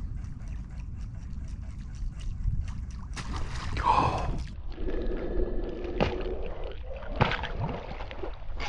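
Water splashing and gurgling against a kayak, with a loud splash about three seconds in and a couple of sharp knocks near the end.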